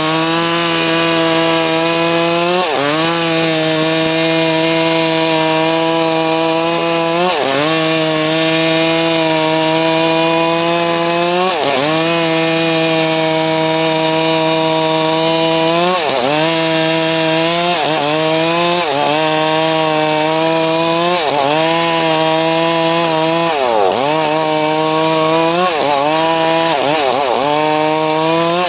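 Engine-driven homemade sawmill (gergaji srekel) running and cutting mahogany wood: a steady engine note that drops in pitch and recovers every few seconds, about ten times.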